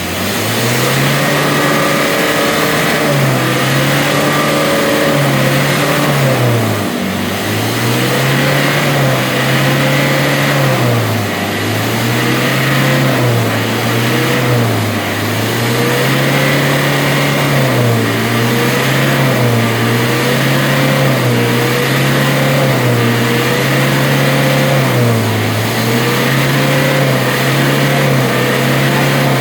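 Diesel engine being revved up and down again and again, each rise held for a few seconds before the revs drop back, as in a free-acceleration smoke opacity test of its exhaust.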